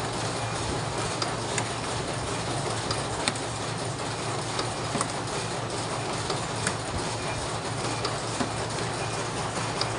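CNC spring coiling machine running steadily, a continuous mechanical clatter over a low hum, with sharp clicks scattered through it.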